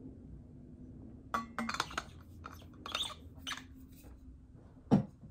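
Water bottle handling: a quiet stretch of drinking, then several sharp clinks and taps as the cap is screwed back on, and one louder dull thump near the end as the bottle is put down.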